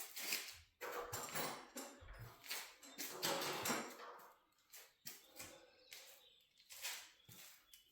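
Metal garage-door spring hardware being worked by hand: irregular scraping and rattling, densest from about one to four seconds in, with scattered knocks later.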